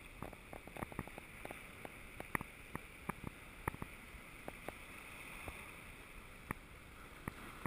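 Small sea waves lapping against a rocky shore: a faint steady hiss of water with many irregular sharp ticks and clicks.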